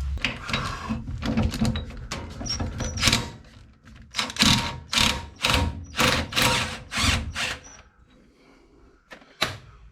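Repeated metal-on-metal knocks, about two a second with a short ringing after some, as a Mopar 8 3/4 rear axle and brake drum are banged on to knock the axle loose from the housing. The knocks ease off near the end, and one more comes just before it ends.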